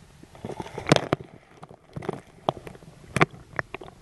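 Water splashing and slapping as a scuba diver steps off a boat's stern into the lake and small waves hit the surface. There are several short sharp slaps, the loudest about a second in and about three seconds in.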